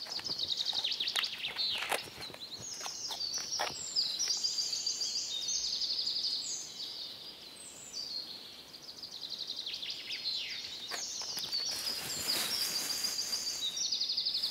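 Small woodland birds chirping in quick, high trills, one phrase after another at varying pitch, with a few faint clicks in between.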